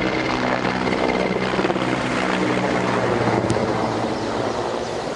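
Engines of a group of police motorcycles riding together in formation: a steady engine drone with several held tones, easing off slightly near the end.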